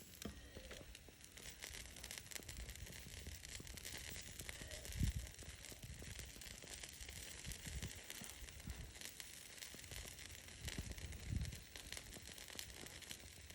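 Faint crackling of a wood campfire, a steady scatter of small pops and snaps, with two soft low thumps, one about a third of the way in and one later on.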